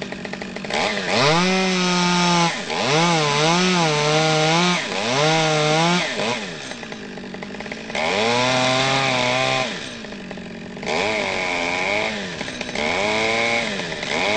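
Top-handle chainsaw cutting into an ash trunk in about six bursts of full throttle, the engine pitch rising and dipping as the chain bites, with the engine dropping back to idle briefly between bursts.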